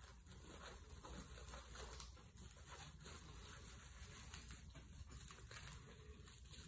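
Faint crinkling and rustling of banana leaves and clear plastic film being folded by hand around a bánh giò dumpling, a string of small irregular crackles over a low room hum.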